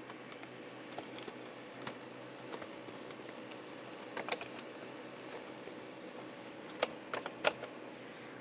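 Irregular light clicks and taps of fasteners and a hand tool being worked under the lower edge of a car's plastic front bumper cover as it is secured. A few quick clicks come about four seconds in, and the sharpest clicks come near seven seconds.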